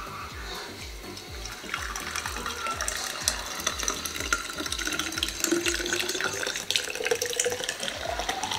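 Watermelon juice pouring in a stream into a glass carafe. It starts about two seconds in, and near the end the pitch of the filling sound rises steadily as the bottle fills up.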